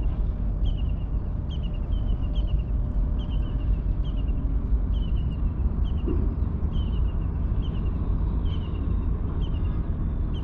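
A steady low wind rumble on the microphone, with a bird repeating short, falling chirps about one and a half times a second.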